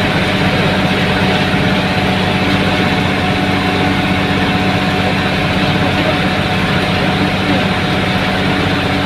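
Tata bus engine running steadily at cruising speed, a constant drone mixed with road and tyre noise as heard inside the driver's cab.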